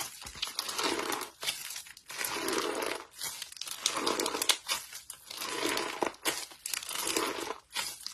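Slime being worked by hand, crackling and crinkling in about six separate squeezes, each lasting most of a second with short gaps between them.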